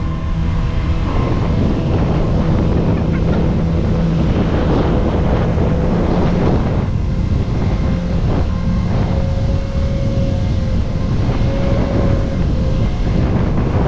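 Jetcar engine running at a steady pitch, with wind rushing over the microphone.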